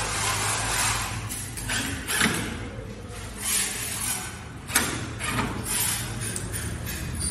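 Cordless drill driving screws into a steel door frame in several short bursts, with metal clinks and a sharp knock a little past the middle.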